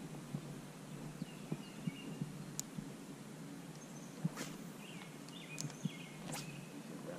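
Quiet outdoor ambience: a steady low hiss with scattered light taps and knocks, and a few faint bird chirps.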